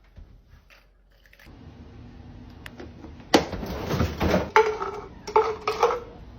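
Kitchen clatter of hard objects being handled: a sharp knock about three seconds in, then clinking and knocking, with a few short ringing squeaks near the end.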